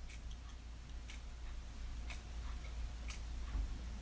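Faint regular ticking, about one tick a second, over a low steady hum: quiet room tone.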